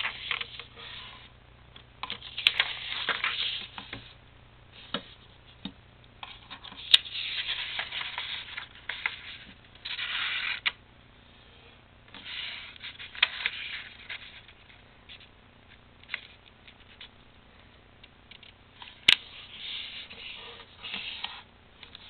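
A sheet of paper being folded by hand: rustling and sliding in spurts of a second or two as it is flattened and creased, with a few sharp taps, the clearest about three-quarters of the way through.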